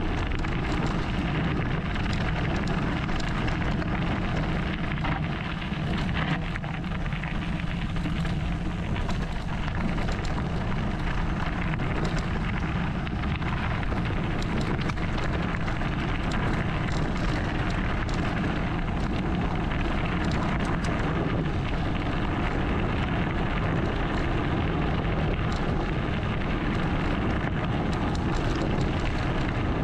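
Enduro mountain bike rolling downhill on a loose gravel and dirt track: steady tyre noise over the stones, with constant small rattles and clicks from the bike, and wind rushing over the microphone.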